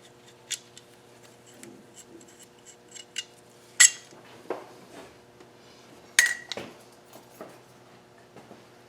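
Scattered light clicks and taps of tools and small metal parts being handled, with two sharper ringing metallic clinks about four and six seconds in.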